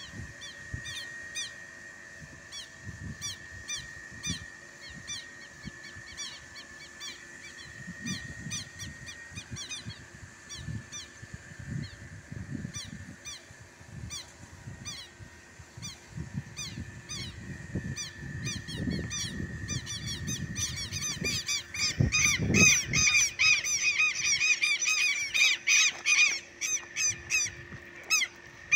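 Southern lapwing (quero-quero) giving its strident calls in a rapid repeated series of short, falling notes. The calls grow much louder about twenty seconds in.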